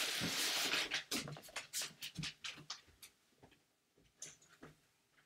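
Someone moving about the house: a short scraping rush in the first second, then a run of light clicks and knocks that fade away.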